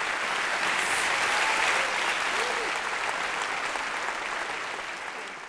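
Audience applauding at the close of a talk, fading toward the end.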